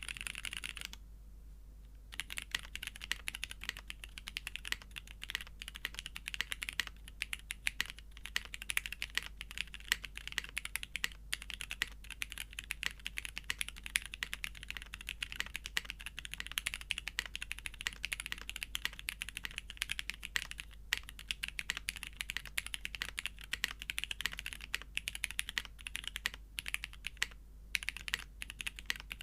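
Fast, continuous typing on a custom top-mount mechanical keyboard with lubed retooled Cherry MX Black linear switches in an aluminium plate and GMK keycaps: a dense clatter of keystrokes with a few short pauses, starting about two seconds in.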